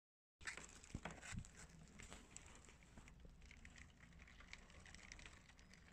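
Faint patter of hailstones striking the window and the lawn, heard through the closed glass, with a few sharper clicks in the first second and a half.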